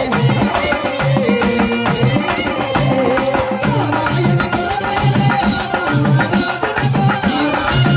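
Pandari bhajana devotional folk music accompanying a group dance, with a hand drum keeping a steady rhythm under a held melody.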